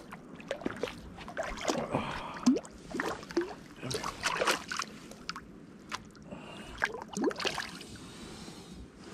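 River water splashing and sloshing in irregular bursts as a freshly landed trout is handled in the shallows.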